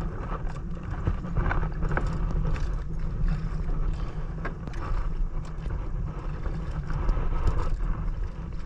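Strong wind buffeting the microphone in a steady low rumble, with water splashing and slapping against a small boat in short irregular bursts.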